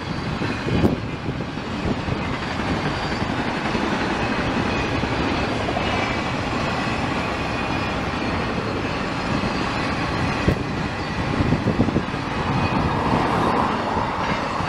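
Intermodal freight train of semi-trailers on flatcars rolling past: a steady rail noise from its wheels.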